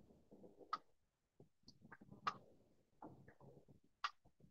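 Near silence: faint room tone with three short, sharp clicks about a second and a half apart.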